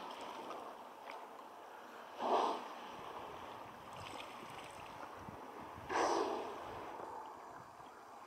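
Southern resident killer whales (orcas) surfacing and blowing: two short, breathy exhalations about four seconds apart, the first a couple of seconds in and the second past the middle, over a steady hiss of water and wind.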